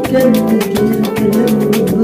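Background music with a quick, steady beat and held pitched notes.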